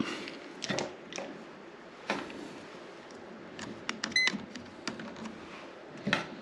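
Scattered clicks and knocks of stiff insulated copper wires being handled in a metal electrical box. About four seconds in, a non-contact voltage tester gives one short, high beep, the sign that it senses voltage on a wire.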